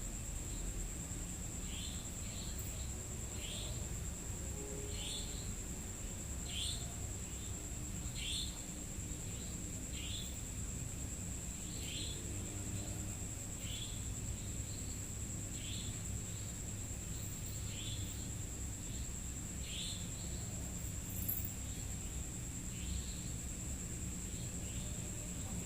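Insects calling: a steady high-pitched whine with short falling chirps repeating roughly once a second, over a low rumble.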